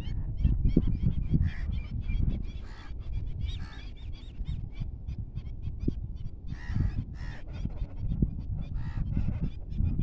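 A flock of waterbirds calling, many short calls repeated and overlapping throughout, over a heavy low rumble of wind on the microphone.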